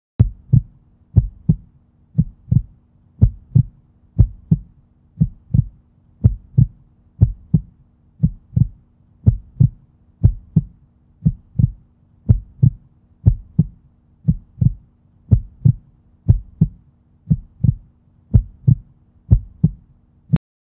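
Heartbeat sound effect: paired low thumps, lub-dub, repeating evenly about once a second over a faint steady hum, cutting off suddenly near the end.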